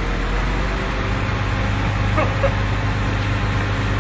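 Diesel engine of a truck-mounted crane running steadily under load as it holds a machine cabinet on its chain, a low hum that grows stronger about a second in.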